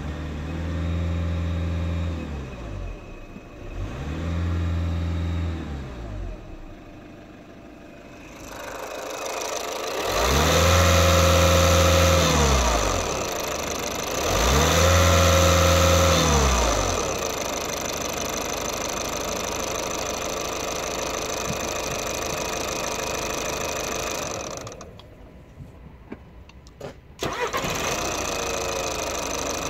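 Skoda Octavia 1.6 TDI (CAYC) common-rail four-cylinder diesel revved four times, each rev rising and falling back, the last two louder, then settling to a steady idle. About 25 seconds in the sound briefly drops quieter with a few clicks before the idle comes back.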